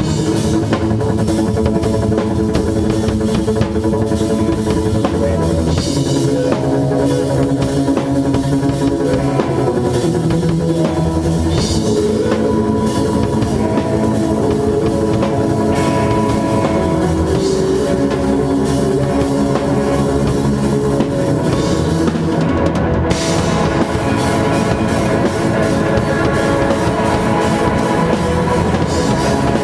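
Instrumental rock band playing live: electric guitars over a Pacific drum kit with Sabian cymbals, loud and steady. The cymbals drop out for a moment about three-quarters of the way through.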